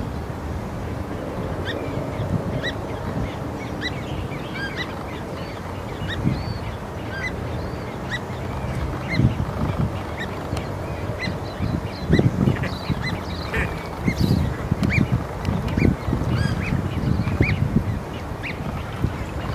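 Great crested grebe chick giving short, high-pitched begging peeps, about two a second, as its parent feeds it. An uneven low rumble runs beneath and grows stronger in the second half.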